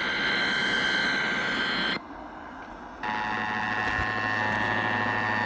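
Emergency Alert System monthly test heard over FM radio through static. The digital data burst of the SAME header ends about two seconds in. After about a second's pause, the steady two-tone attention signal begins.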